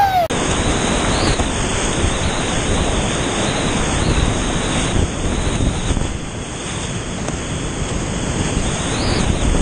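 Whitewater rapid rushing steadily and loudly around a kayak, heard up close from a camera on the boat as it runs the drop.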